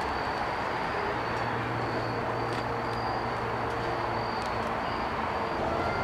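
Woodland Mills sawmill's petrol engine running steadily with a low hum, with a few faint knocks.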